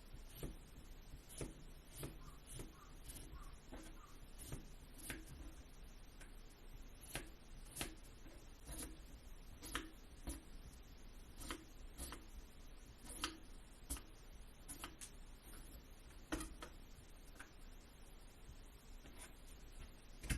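Light, irregular taps and clicks of kitchen utensils on a board or dish during food preparation, roughly one every second.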